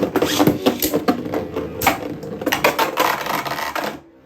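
Two Beyblade Burst spinning tops whirring and clashing in a plastic battle stadium, with a steady hum broken by many sharp clacking hits. The battle noise drops away about four seconds in, as it ends in a ring out.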